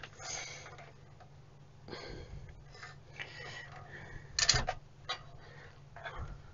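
Hands handling the opened metal chassis of a benchtop electronic instrument: scattered light clicks and knocks as the unit is tilted and reached into, the sharpest about four and a half seconds in.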